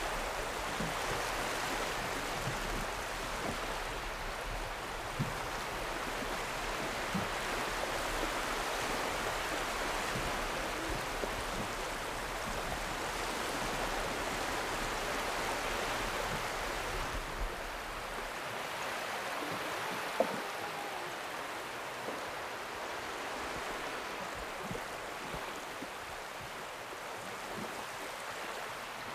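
Steady rush and wash of water, with scattered small knocks and splashes; a low hum underneath stops about two-thirds of the way through.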